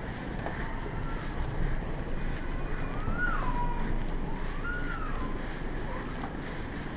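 Steady low rumble of background noise in an enclosed airport walkway. Two faint tones rise and then fall, about three seconds and about four and a half seconds in.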